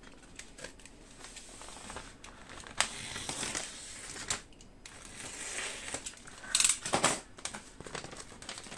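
Plastic packaging crinkling and rustling as kit parts are unwrapped and handled, with a few light clicks and a louder burst of crinkling about two-thirds of the way through.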